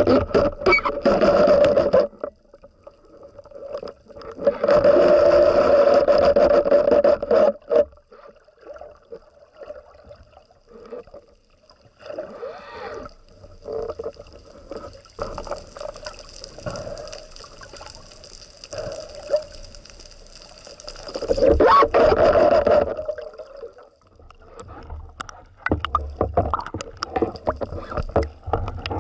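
Water sloshing and bubbling around a spearfisher's camera, with three loud rushes of water near the start, at about five to seven seconds in and at about twenty-two seconds in, and quieter scattered clicks between them.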